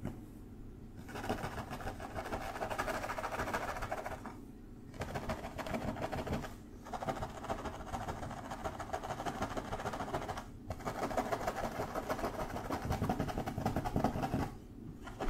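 Fingertips scratching rapidly through long hair on a head: a dense, continuous crackling scratch, broken by a few brief pauses.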